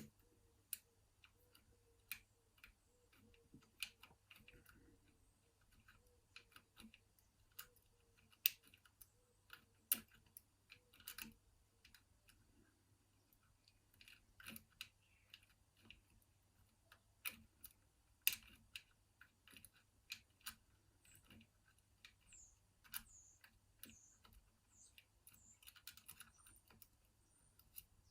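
Faint, irregular metallic clicks and ticks of a piano-wire pick and tension tool working the levers inside a Union 5-lever mortice lock, with a few sharper clicks scattered among them.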